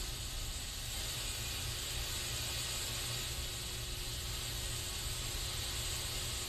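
Continuous hiss of an aerosol spray can, steady and unbroken, with a low rumble underneath.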